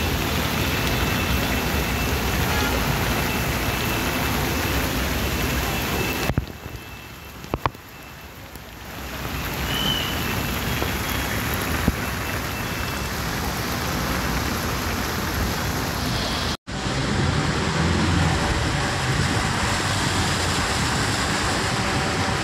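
Heavy rain and floodwater rushing across a street, a loud even hiss, with a car driving through the water. The hiss drops for a couple of seconds about a third of the way in and breaks off for an instant past the middle.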